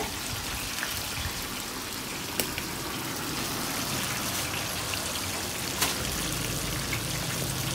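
Battered squid deep-frying in a stainless-steel fryer of hot oil: a steady sizzle with sharp pops, one about two and a half seconds in and another near six seconds. A low hum joins in near the end.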